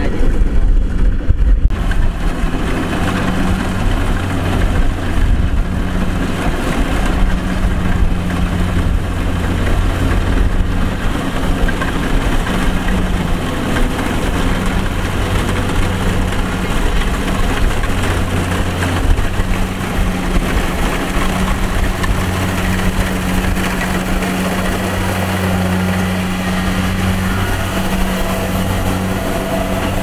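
Kubota DC-70 rice combine harvester running while it cuts and threshes standing rice: a steady low engine drone with a dense mechanical clatter over it.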